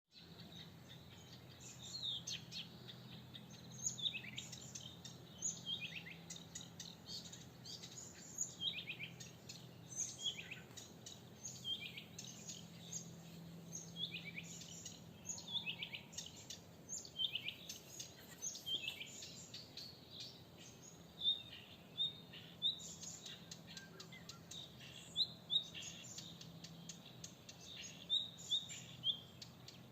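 Songbirds singing: a dense, continuous run of short high chirps and repeated song phrases, over a faint steady low hum.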